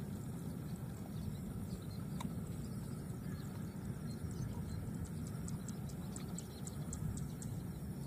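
Outdoor ambience: a steady low rumble with faint, short high ticks a few times a second and a single click about two seconds in.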